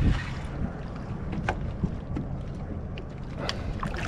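Wind rumbling on the microphone out on the water, with a couple of sharp small clicks.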